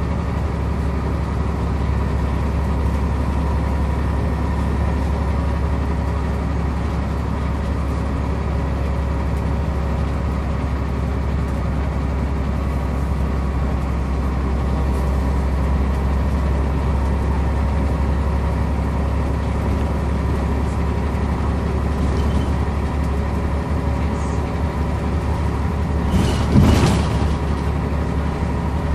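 Scania Omnicity single-decker bus running along, heard from inside the passenger saloon: a steady low engine and road rumble with a faint constant hum. Near the end comes one brief, loud burst of noise.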